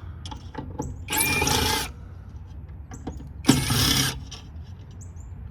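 Cordless drill-driver with a Phillips bit spinning in two short bursts, one about a second in and one about three and a half seconds in, whining as it backs out screws. Small clicks and knocks of the tool on the metal casing come between the bursts.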